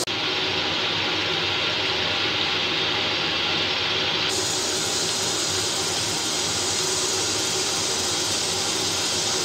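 Spicy chili sauce with chicken feet bubbling and hissing steadily in a pan as it cooks down to reduce the liquid. The hiss changes character abruptly about four seconds in.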